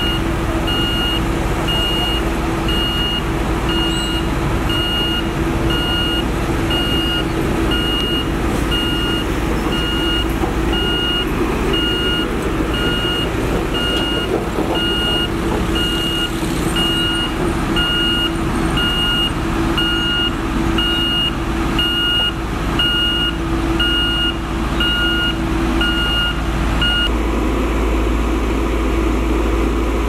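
Reversing alarm of a single-drum soil compactor roller beeping at an even pace over the steady drone of its diesel engine; the beeping stops near the end while the engine keeps running.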